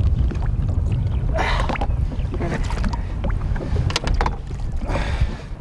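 Wind buffeting the microphone in a steady low rumble, over lake water lapping at the boat, with a few splashes and knocks as a musky is handled in the landing net at the gunwale.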